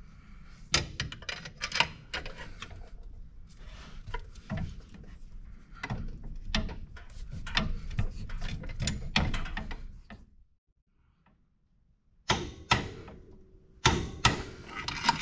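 Irregular metal clicks and clanks of a torque wrench, socket and pry bar working on a Can-Am Maverick X3's primary clutch bolt as it is torqued to about 90 foot-pounds. The sound drops out for about two seconds after ten seconds, then a few sharp clicks follow near the end.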